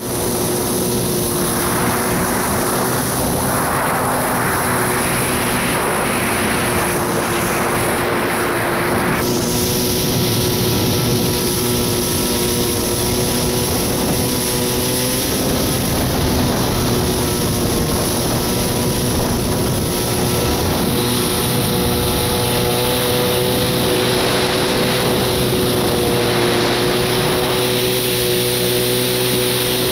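1993 Kawasaki 650SX stand-up jet ski's two-stroke twin engine running at a steady pitch while under way, with the rush of water and wind rising and falling over it.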